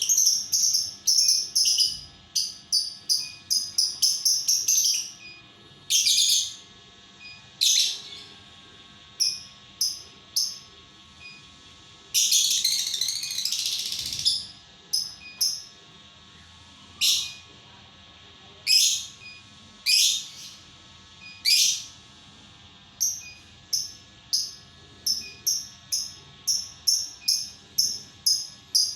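Lovebird chirping: short, shrill, high-pitched chirps in quick runs, with a longer rasping trill about twelve seconds in.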